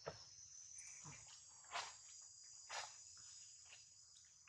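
Faint, steady, high-pitched drone of insects, with a few short crackles roughly a second apart.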